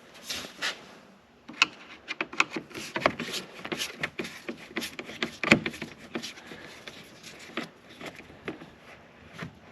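Phillips screwdriver backing out the screws that hold a car's fog light in the bumper: a run of quick clicks and scrapes of metal on plastic, thinning out near the end.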